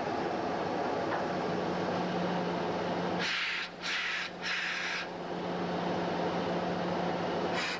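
ST44 (M62) diesel locomotive running steadily with a low hum. About three seconds in come three short, loud hissing bursts in quick succession, and one more brief burst near the end.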